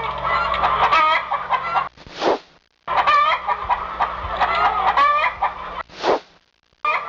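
Chickens clucking in short edited stretches that start and stop abruptly, broken by a brief whoosh about two seconds in and another about six seconds in.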